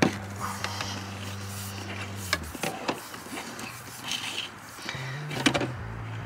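PVC air-intake tubing being pushed by hand through an opening in a van's firewall: scattered scrapes, rustles and light taps against engine-bay parts. Under them runs a low steady hum that stops about two and a half seconds in and returns near the end at a slightly higher pitch.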